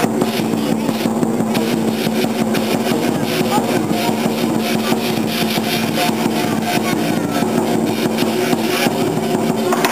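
Chinese lion dance percussion: a drum and clashing cymbals beating a fast, steady rhythm.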